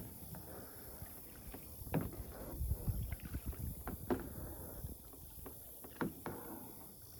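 Kayak paddle strokes dipping and splashing in lake water about every two seconds, over a low rumble of wind on the microphone.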